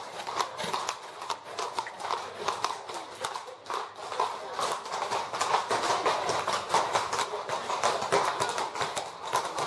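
Horses' hooves clip-clopping on a paved stone street, a steady run of sharp, uneven strikes from horses walking past.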